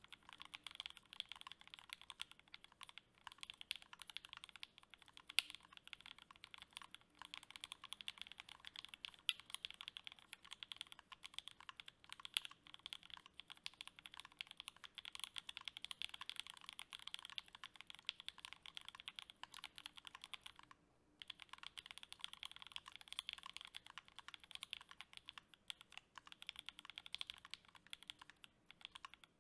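Steady typing on a custom 60% HHKB-layout mechanical keyboard, a KBDFans D60 with C3 Equalz Tangerine linear switches on an FR4 plate and GMK ABS doubleshot keycaps: a dense run of keystroke clacks, broken by one short pause about two-thirds of the way through.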